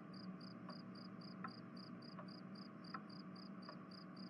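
Faint night ambience of crickets chirping in an even rhythm, about four high chirps a second, with a softer tick about every three-quarters of a second.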